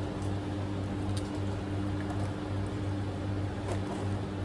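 Electric desk fan running with a steady low motor hum, with a few faint small clicks over it.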